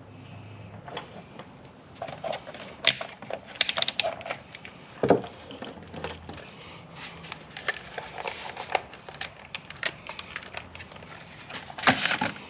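Handling noise of small parts at a workbench: irregular clicks, light knocks and rustles as wires, crimp connectors and tools are moved. A few sharper clicks stand out in the first half, with another burst of handling near the end.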